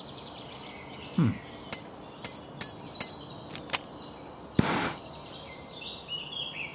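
Cartoon sound effects as a minifigure gets ready with a welding torch. A short falling vocal grunt comes about a second in, then a run of light clinks and clicks, a faint high whine, and a brief burst of hiss just before five seconds.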